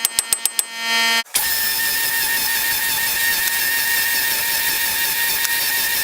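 Pneumatic air hammer with a chisel bit working on a stuck truck front hub. First comes a quick run of separate blows with ringing metal, about six a second. Then, a little over a second in, it hammers continuously with a steady high whine and hiss.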